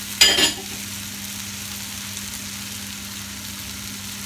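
Raw chicken pieces sizzling and frying in a curry base of onions, tomatoes and spices in a pot over very high heat, a steady sizzle over a low hum. A short loud noise just after the start is the loudest moment.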